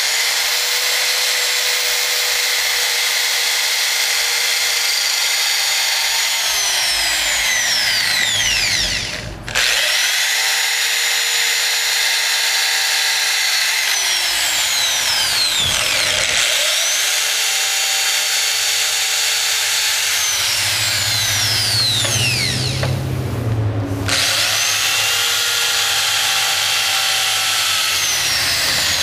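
Hand-held electric drill boring through the steel hoops of an oak wine barrel, running in four long stretches with short pauses between them. Its motor whine drops in pitch near the end of each run.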